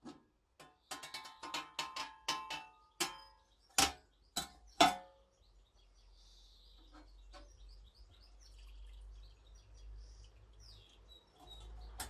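A quick run of sharp metallic clinks and knocks, about a dozen in the first five seconds, like small metal parts being handled and set down. After that come only faint, high chirps.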